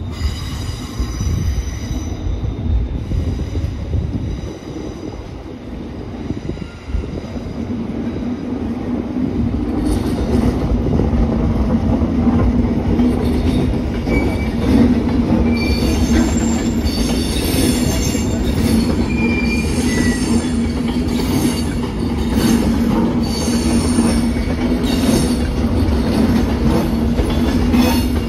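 Avanti West Coast Class 390 Pendolino electric train passing close by through the station pointwork, its wheels squealing and clicking over the rails. A steady hum sets in and grows louder from about ten seconds in as the train comes alongside.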